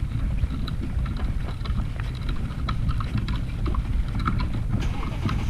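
Wind rumbling on the microphone, with many small irregular clicks over it.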